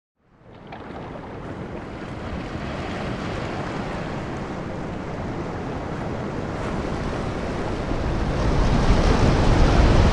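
Ocean surf: a steady rush of waves fades in from silence and builds slowly, swelling loudest near the end as a wave breaks.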